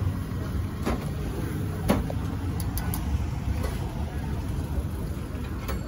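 Steady low street rumble, the kind PANN files under vehicles, with two sharp clicks about one and two seconds in.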